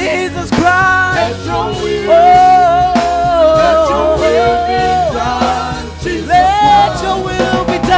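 Congregation singing a gospel worship song together, with long held notes.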